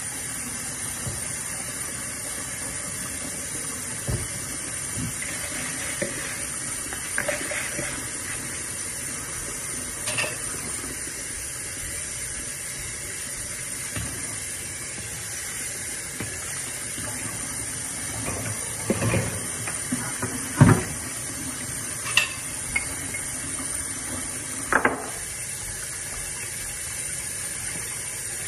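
Water running into a kitchen sink while a frying pan is washed, with scattered clanks of the pan and dishes against the sink, the loudest about two-thirds of the way through.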